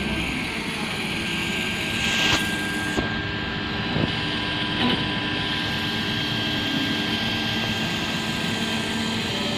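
MINGDA MD-6L FDM 3D printer running: a steady whir with several steady whining tones, and a few short clicks or knocks a couple of seconds in.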